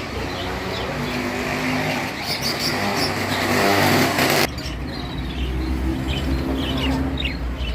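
A motor vehicle's engine running and growing louder, cut off abruptly about four and a half seconds in; after the cut, birds chirp over a low steady hum.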